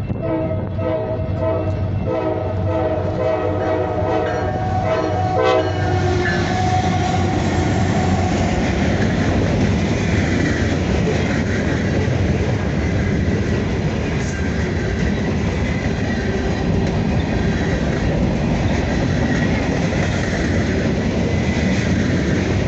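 Norfolk Southern freight locomotive's air horn sounding a chord of several notes in a series of short blasts, which stops about five seconds in. Then the freight train passes close by: a loud steady rumble of the locomotives and cars with wheels clattering over the rails.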